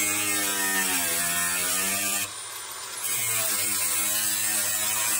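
Small handheld power tool's electric motor running with a steady whir, briefly letting off about two seconds in.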